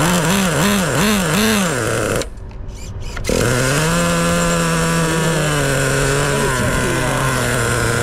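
Traxxas Rustler's 2.5 nitro two-stroke glow engine revving up and down in quick throttle blips about twice a second, then dropping away suddenly for about a second before running on at a steady, held pitch.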